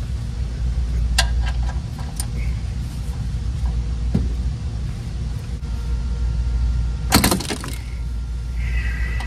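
Ratchet and 17 mm socket clinking against the oil drain plug as they are fitted on it, a few sharp metal clicks and a louder metallic rattle about seven seconds in, over a steady low hum.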